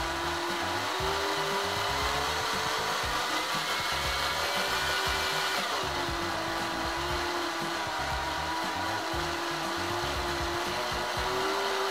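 Small PWM speed-controlled DC motor spinning a drill chuck and spool, winding enamelled copper wire, with a steady whine. Its pitch drifts up, drops suddenly about halfway through, then holds steady and rises slightly before cutting off right at the end.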